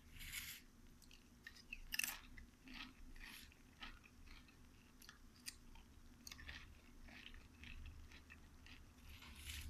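Crisp homemade nacho chips crunching and crackling faintly in irregular snaps, the loudest about two seconds in.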